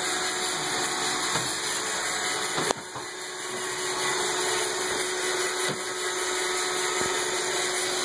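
iRobot Roomba robot vacuum running across a hardwood floor: a steady running noise with a steady hum. There is one sharp knock a little under three seconds in, after which the sound briefly dips and then recovers.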